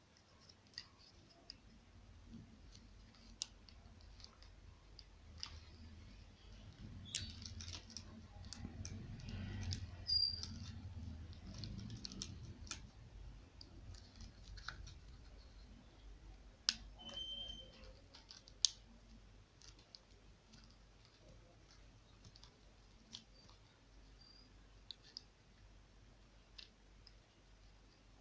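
Scattered sharp clicks and handling noise from hands working on an expandable garden hose and its fittings, with a stretch of low rustling movement a third of the way in.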